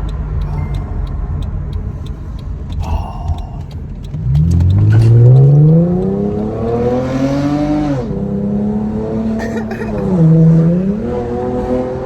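Custom Cadillac coupe's engine under hard acceleration: a low rumble for the first few seconds, then the engine note climbs steadily in pitch for about four seconds, drops sharply, and holds steady with a brief dip and recovery near the end.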